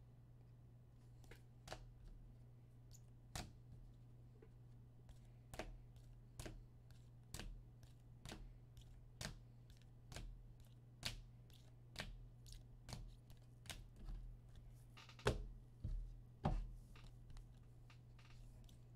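Trading cards in clear rigid plastic toploaders clicking and clacking against one another as a stack is sorted by hand: a string of sharp, irregular clicks, roughly one a second, with two louder clacks about three-quarters of the way through. A low steady hum runs underneath.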